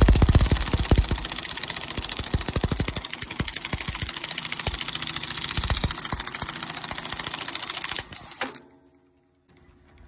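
Drill driver turning a gear puller's forcing screw to pull the centrifugal clutch off the sawmill engine's shaft: a steady motor run with rapid, even clicking. It stops about eight and a half seconds in.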